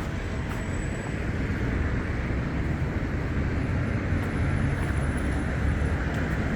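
Steady low rumble of outdoor city street noise, such as passing traffic, slowly growing a little louder.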